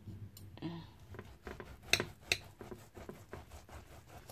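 Knife and fork clicking and scraping on a ceramic plate while slicing through a steamed loaf of Vietnamese pork-and-beef sausage (chả lụa), with a few sharp clinks about two seconds in.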